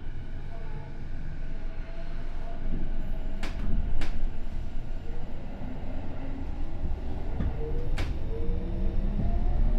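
Tokyo Metro 07 series train heard from inside the car as it pulls away from a station: a low rumble with a few sharp clicks, then from about halfway through the Hitachi IGBT VVVF inverter's rising whine as the motors accelerate.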